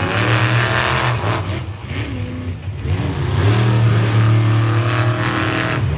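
Loud vehicle engines revving over a deep, steady engine note, with the pitch rising and falling several times.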